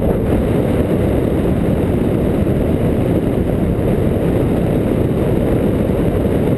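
Airflow rushing over the camera's microphone during a paraglider flight: a steady, loud, low rushing noise.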